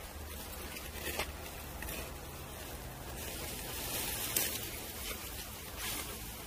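Meat sizzling on a wire grill over a charcoal fire, with a few sharp clicks and crackles as the pieces are turned with metal tongs.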